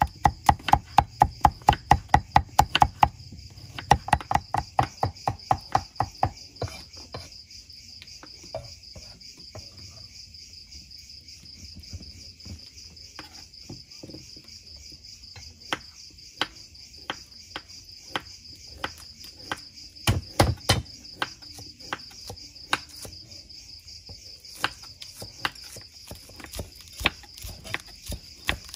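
Cleaver chopping on a thick round wooden chopping block. It minces in two fast runs of about five strokes a second near the start, then gives scattered single chops and later slower cuts through green onions. A steady pulsing chirr of crickets sounds behind the chopping.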